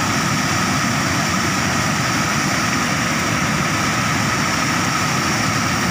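Muddy water rushing and churning past a concrete weir in a steady, loud, unbroken rush of water noise.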